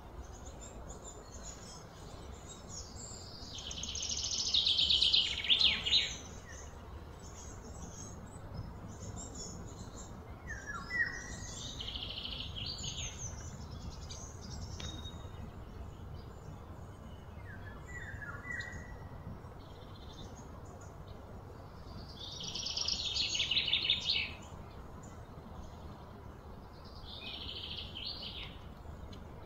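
Outdoor birds calling. Two louder buzzing trills swell over a couple of seconds and cut off, about four seconds in and again past twenty seconds, among short chirps and brief falling notes over a low steady rumble.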